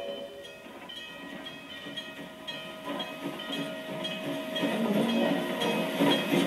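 Canadian Pacific 2023 steam locomotive getting under way, its exhaust chuffing about twice a second over a steady steam hiss, growing louder as it draws nearer.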